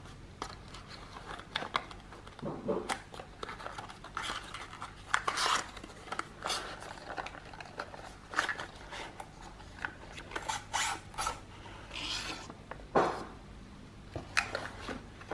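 Cardboard box and paper packaging handled by hand: irregular rubbing, scraping and sliding as the inner tray is worked out of the box and the paper manual is lifted out, with a few sharper knocks and clicks, the loudest about thirteen seconds in.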